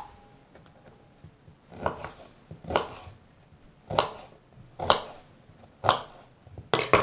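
Kitchen knife chopping firm peeled quince into small cubes on a wooden cutting board. About six cuts come roughly a second apart, starting about two seconds in, each a short crunch through the fruit and knock on the board.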